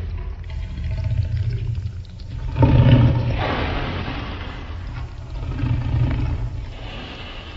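Deep, rumbling monster roar, swelling loudest about two and a half seconds in and again around six seconds.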